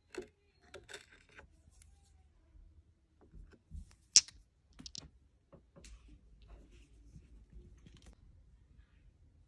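Polished crystal stones being handled: scattered light clicks and taps of stone against stone and the glass tray, with one sharp click about four seconds in.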